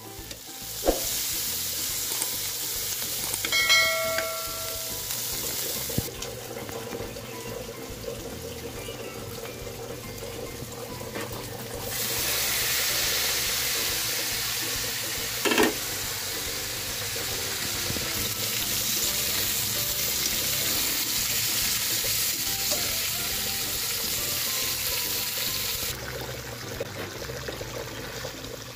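Fish frying in hot oil with a steady sizzle that gets louder and quieter in sudden steps. A short ringing clink comes about four seconds in and a sharp clink in the middle.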